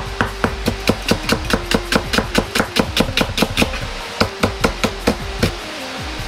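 Chinese cleaver slicing an onion on a plastic cutting board: quick, even knocks of the blade on the board, about five a second. The knocks pause briefly about three and a half seconds in, then a few more strokes follow.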